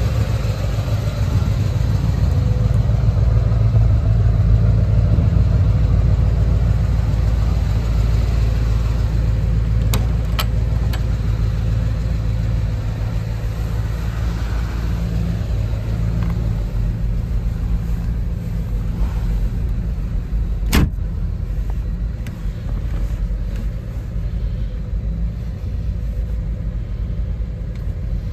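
Corsair roadster's engine idling steadily on its own as it warms up from a cold start, a low even running sound. A sharp click about two-thirds of the way through, after which the engine sounds a little quieter.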